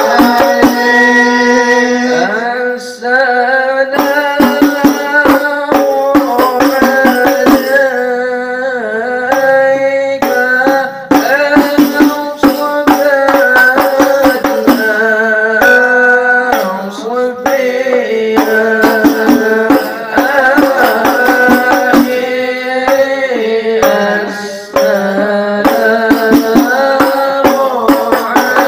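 Al-Habsyi sholawat: voices singing Arabic devotional verses in a drawn-out, bending melody over a fast, steady pattern of hand-struck frame-drum (rebana/terbang) strokes.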